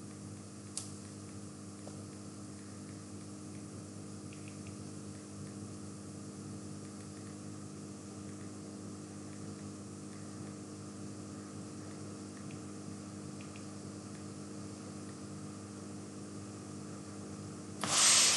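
Steady low hum of a computer fan and room tone, with a few faint steady tones under it. A single sharp click comes about a second in, and a short loud noise breaks in at the very end.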